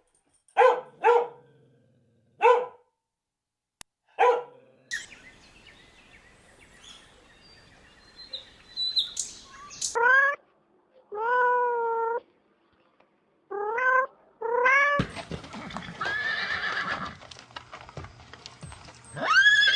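Animal calls: a few short barks near the start, then a series of longer horse neighs and whinnies.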